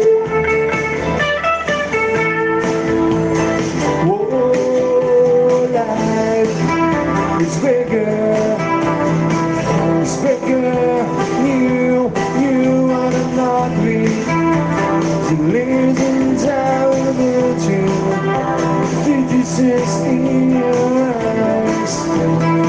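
Guitar-led music: a melody that slides and bends between notes over steady accompanying chords and bass.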